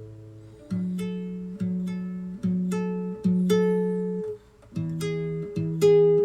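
Acoustic guitar strumming chords in a steady rhythm, about one strum every 0.8 seconds, each chord ringing out, with a short break a little past the middle.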